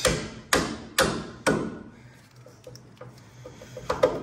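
Hammer blows on rusted metal at a truck's front wheel hub: four hard strikes about half a second apart, a stretch of light taps, then two more strikes near the end.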